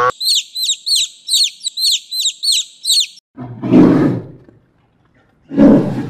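A quick run of high chirps, about four a second, for the first three seconds, followed by two loud, rough bear growls about two seconds apart.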